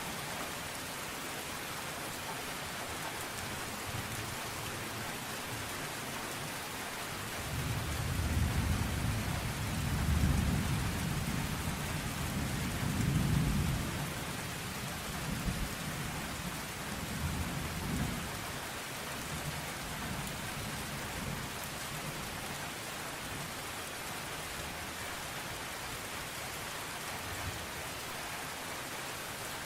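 Steady rain falling on a car, heard from inside, with a low roll of thunder that swells about seven seconds in and dies away by about fourteen seconds, followed by a couple of fainter rumbles.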